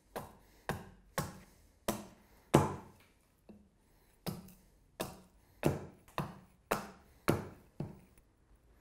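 Carving hatchet chopping into a wooden spoon blank stood on a wooden chopping block: about a dozen sharp strikes, roughly two a second, each one hewing a chip from the blank, with a short pause near the middle.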